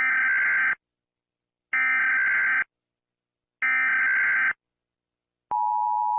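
Emergency Alert System SAME header: three buzzy digital data bursts, each just under a second long and about a second apart. About five and a half seconds in, the steady two-tone EAS attention signal begins.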